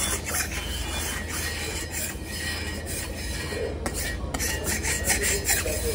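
An iron teppan griddle being scraped clean by hand, a rasping scrape in repeated back-and-forth strokes.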